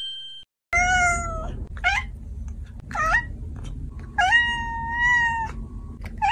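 A fluffy blue-eyed colourpoint cat meowing repeatedly, about five meows, the fourth long and drawn out.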